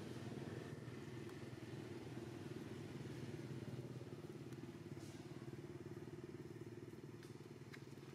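Faint, steady low engine drone, like a motor running out of sight, with a few faint ticks over it.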